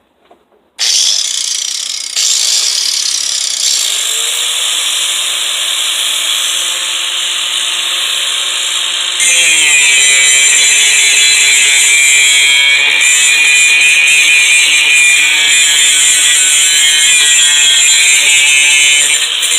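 Handheld electric angle grinder starting about a second in and grinding rust off a metal tool, with a harsh, steady noise over the motor's whine. The whine dips in pitch as the disc is pressed to the metal, and the grinding gets louder from about nine seconds in.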